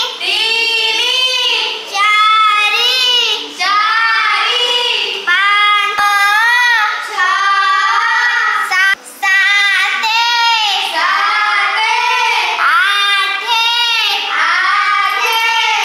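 A child singing a multiplication-table chant in Odia, a steady run of short sung phrases.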